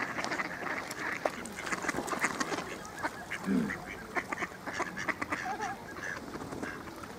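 Mallard ducks quacking now and then, among many short clicks.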